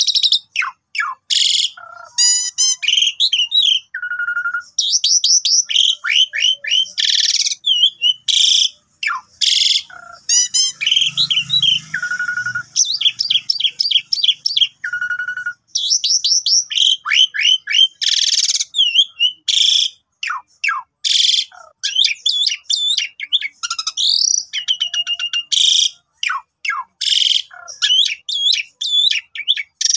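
Asian pied starling (jalak suren) singing a long, varied song: loud whistles, rapid trills and harsh rasping notes follow each other with hardly a pause.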